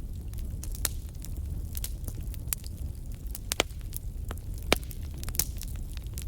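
Wood fire crackling in a fireplace: irregular sharp pops and snaps over a low steady rumble, with the loudest pop about three-quarters of the way through.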